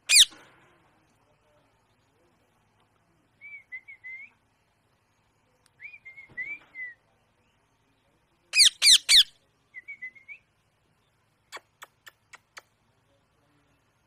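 Rose-ringed (Indian ringneck) parakeet calling: a loud shrill screech right at the start, soft wavering chirps, then three loud screeches in quick succession about halfway through. A run of five sharp clicks follows near the end.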